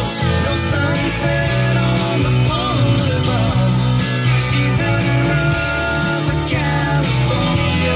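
Rock music with guitar and singing, playing on a car radio.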